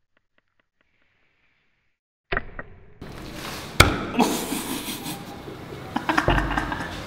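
The back of an axe head smashing vegetables on a wooden chopping block: a sharp whack about two seconds in, then a noisier stretch with several more heavy hits, the loudest about a second and a half later.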